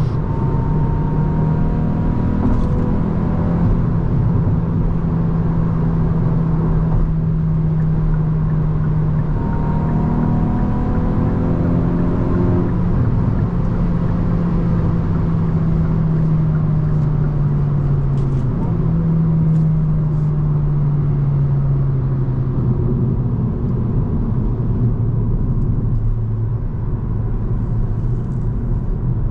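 Hyundai i20 N's turbocharged 1.6-litre four-cylinder engine under way on the motorway, over steady road noise. Its note sinks slowly in pitch and jumps back up twice, about a third and two-thirds of the way through.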